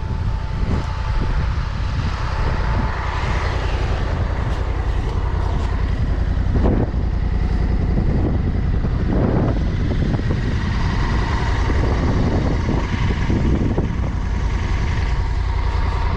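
Honda Africa Twin motorcycle engine running steadily with a deep, continuous rumble and a faint constant whine on top.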